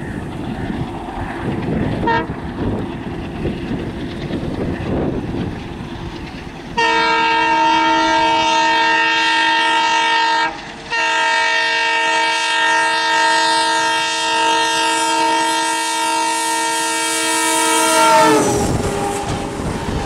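WDM-3D ALCo diesel locomotive approaching at speed with a growing rumble, then sounding its multi-tone horn in one long blast from about seven seconds in, broken once briefly. Near the end the horn's pitch drops as the locomotive passes, and the rush of the passing coaches follows.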